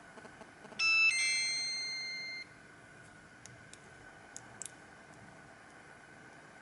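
Siemens CL50 mobile phone playing a two-note electronic ringtone through its speaker: a brief high note, then a longer lower note that fades and cuts off abruptly. A few faint clicks follow.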